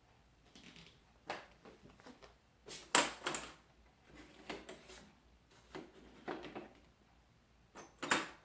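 Glossy photo paper being loaded into the rear paper feeder of a Canon TS6220 inkjet printer: scattered plastic clicks and clatters with short paper rustles, loudest about three seconds in and again near the end.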